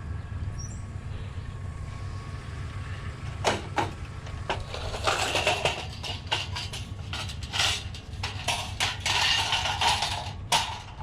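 Scrap items clattering and scraping as they are handled and shifted about, starting about three and a half seconds in as a run of sharp knocks and short rattling scrapes. A steady low rumble runs underneath.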